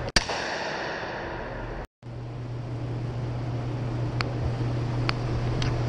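One gunshot at the very start, ringing off the walls of an indoor range. After a brief dropout the sound returns as a steady low hum with a few faint light clicks.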